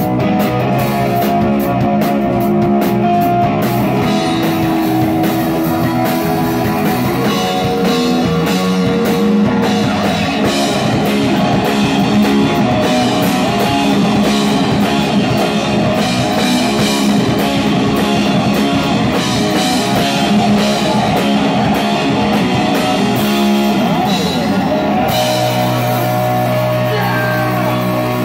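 Live rock band playing loud and dense: electric bass, electric guitar and drum kit with crashing cymbals. About 25 seconds in the drums and cymbals stop and a low held note rings on.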